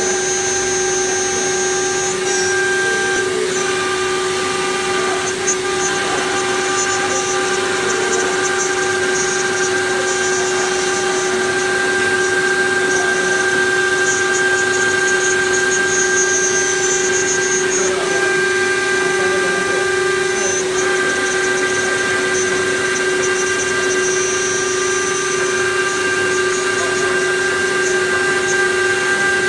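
CNC knife-cutting plotter working through 12 mm foam PVC board, its cutting head and motors giving a steady, unbroken mechanical whine of several fixed tones over a hiss.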